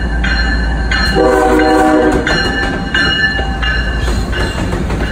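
A Norfolk Southern diesel locomotive running light passes close by with a steady deep engine rumble. It gives one horn blast of about a second, beginning about a second in, over a higher ringing tone that comes and goes about every two-thirds of a second.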